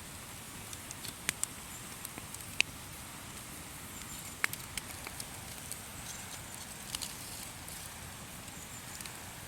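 Wood campfire burning, with scattered sharp crackles and pops over a steady low hiss; the loudest pops come between about two and a half and four and a half seconds in.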